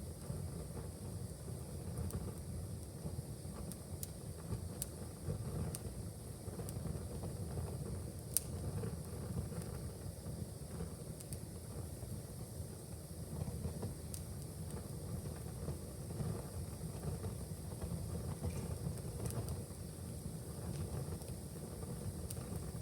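Wood fire in a fireplace crackling, with scattered small pops over a steady low rumble, and one sharper pop about eight seconds in.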